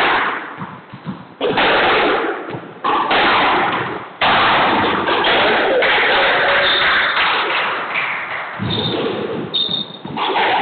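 Squash ball strikes ringing around a squash court: four sharp thuds about a second and a half apart, each with a long echo, then a denser run of echoing knocks, with a couple of short high squeaks near the end.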